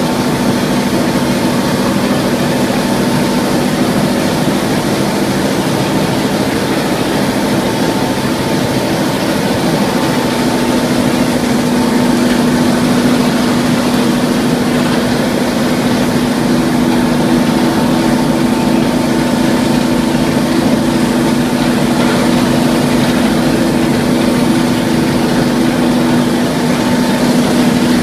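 XZ50 mortar plastering machine running steadily while it sprays mortar through a hose-fed spray gun: a constant mechanical drone with a steady hum over a rushing noise, a second hum tone joining about halfway through.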